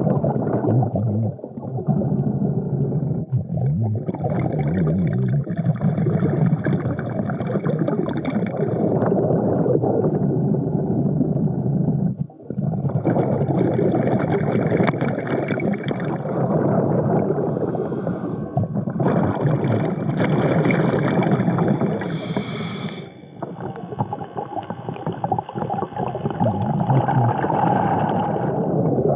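Underwater sound of a diver breathing from a surface air supply: long breaths with rushing bubbles come every few seconds over a constant bubbling rumble.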